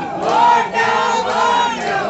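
A crowd of people shouting, with two loud, drawn-out cries, the first about half a second in and the second held for most of the last second.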